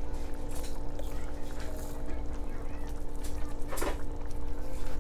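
Kitchen utensils working a thick creamy sauce in a cast-iron skillet over a steady background hum, with one sharp clink of metal about four seconds in.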